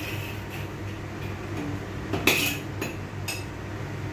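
Metal spoon clinking and scraping against a pan of stir-frying greens: a few sharp clinks, the loudest about two seconds in.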